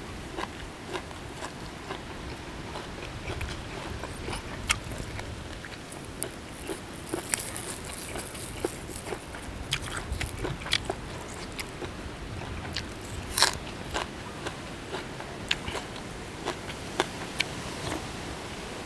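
Close-miked chewing of crunchy golden apple snail salad: wet mouth sounds with scattered sharp crunches and clicks, the loudest about two thirds of the way through.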